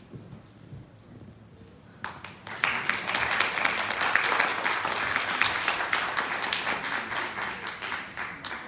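Audience applauding: many people clapping, starting about two seconds in, swelling quickly and tapering off near the end.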